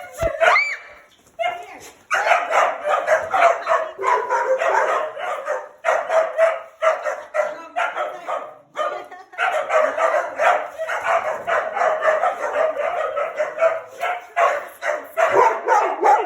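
Dogs barking in quick, overlapping runs, with a brief lull twice and a high rising yip at the start.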